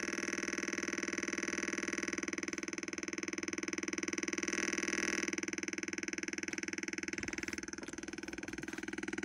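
Steady electronic buzz from a homemade transistor oscillator circuit played through a loudspeaker, a tone rich in overtones with a fast rough pulse. It shifts slightly about five seconds in and grows a little softer near the end.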